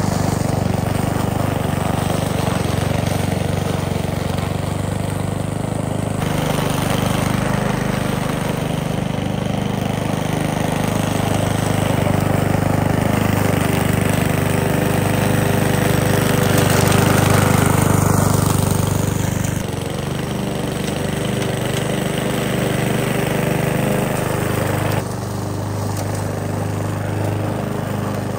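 Gas walk-behind push lawn mower engine running steadily while cutting grass, its level and tone shifting abruptly a few times.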